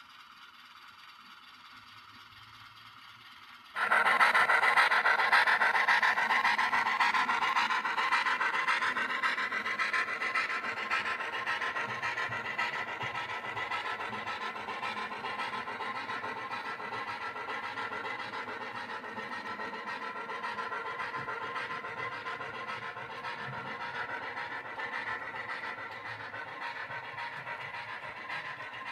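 H0-scale model train running on the layout track: a loud running noise starts suddenly about four seconds in and slowly fades as the train moves away.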